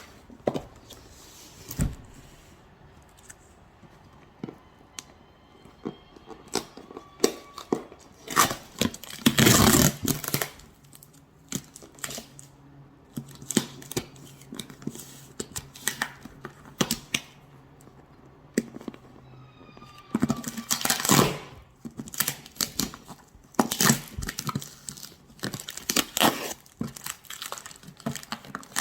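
Tangerine peel being torn off by hand: a run of short, crackly tearing and rustling strokes, with denser bursts about a third of the way in and again in the last third.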